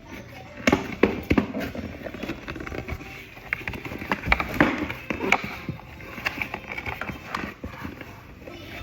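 Irregular knocks, taps and clicks of boxes and small items being handled.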